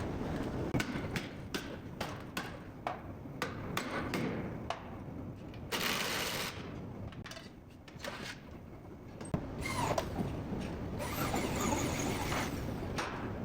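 Workshop tool sounds: scattered sharp taps and knocks, with a short burst of hiss about six seconds in and a longer hiss near the end.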